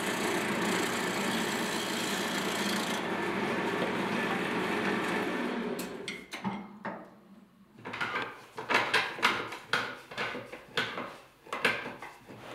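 Wood lathe spinning a black cherry spindle while a hand turning tool cuts it, a steady whir with a cutting hiss that stops about three seconds in; the lathe runs on and winds down about six seconds in. Then a string of wooden knocks and rubs as turned legs are fitted into a cross-shaped cherry base.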